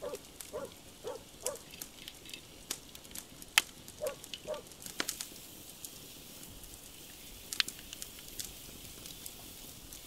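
Charcoal fire under a barbecue grill crackling, with irregular sharp pops over a faint hiss; the loudest pop comes about three and a half seconds in. Short repeated animal calls, about two a second, sound in the first second and a half and again around four seconds.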